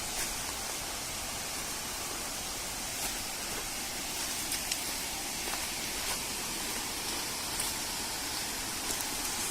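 Steady rushing hiss of a waterfall, with a few faint ticks scattered through it.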